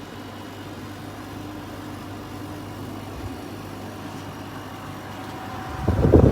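Portable air conditioner running with a steady low hum. Near the end, a much louder, rough rushing sound sets in.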